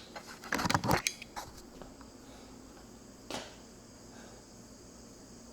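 Dirt-bike tire and inner tube being wrestled off the rim: a quick burst of scraping and knocks about half a second in, a few lighter clicks, and one more knock a little after three seconds. Behind it a steady high buzz of insects.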